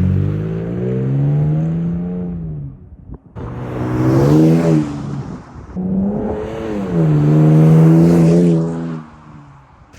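Toyota Tacoma pickup engine and exhaust being revved in three surges, each rising in pitch and then falling back to idle.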